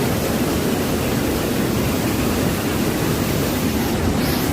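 Waterfall pouring, a loud, even rush of water.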